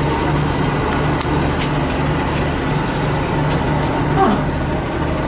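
Heavy truck engine running steadily under load, with a low throb that pulses about twice a second, as a crane lifts a steel track sprocket on a chain.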